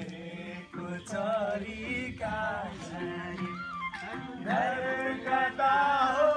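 A song playing: a single high voice sings in bending, ornamented phrases over steady instrumental backing.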